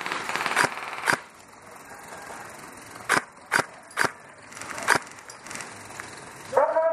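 Airsoft gunfire: about six single sharp cracks at irregular intervals, with a low hiss between them. A loud pitched sound with several tones starts just before the end.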